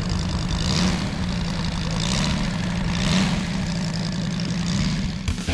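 Moki 250 radial engine of a giant-scale RC F4F Wildcat running steadily at low throttle as the model taxis, its propeller turning.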